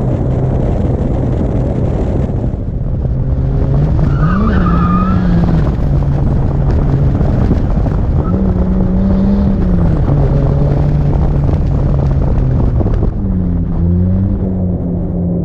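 Drift car engine running hard, its pitch rising and falling as the throttle is worked, with a short tire squeal about four seconds in.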